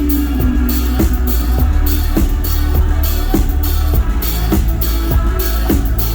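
Live band music with a drum kit keeping a steady beat of about two hits a second over heavy, constant low bass.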